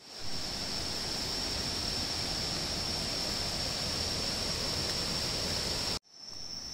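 Steady rush of flowing river water, with a steady high insect drone above it. It cuts off abruptly about six seconds in, leaving quieter insect ambience.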